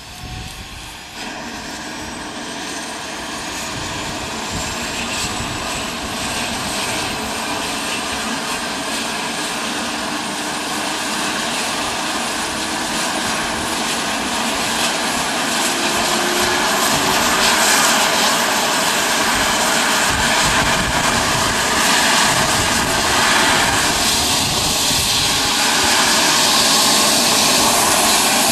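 Eurocopter EC135 helicopter starting up: its twin turboshaft engines spool up with a high whine that rises over the first few seconds and then holds. The overall noise grows steadily louder as the rotor comes up to speed.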